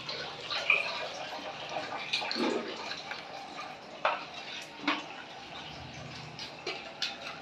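Water running and splashing steadily while an electric water heater's tank fills at low supply pressure, with a few short knocks.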